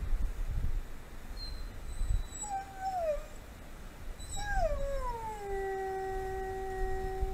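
Wolf howling: a short call that drops in pitch, then a longer howl that slides down and settles into one steady held note.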